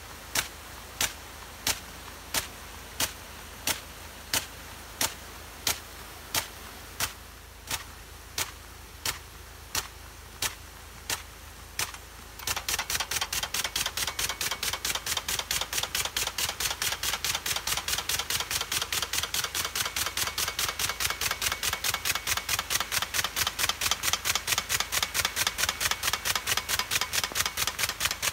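Green plastic impact sprinkler ticking steadily, about one and a half sharp clicks a second as its arm strikes the water jet. About twelve seconds in, it switches to a fast, rattling run of clicks over a louder hiss of spray.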